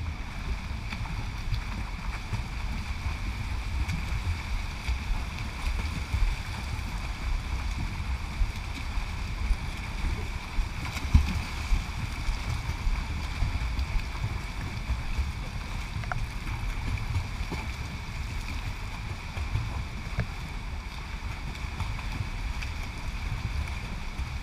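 Swimmers' splashing and water lapping against a camera held at the pool's surface, a churning low rumble with a steady hum above it and a louder splash about eleven seconds in.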